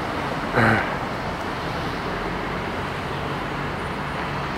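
Steady traffic noise of a city street, with a brief louder sound about half a second in.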